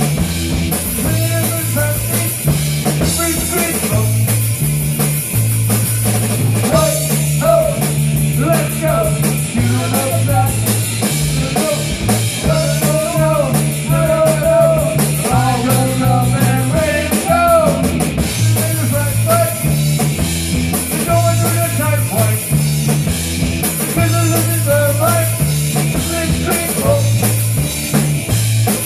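Live punk rock band playing loud: a drum kit keeping a fast beat, distorted electric guitar, and an electric bass stepping between notes.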